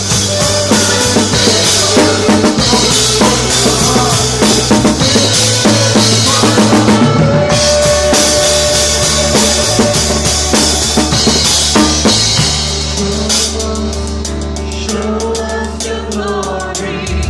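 Live worship band playing an instrumental passage of a gospel song: a full drum kit with bass drum and snare drives over steady bass notes. About twelve seconds in, the drums ease off and the band drops to a softer, sustained passage.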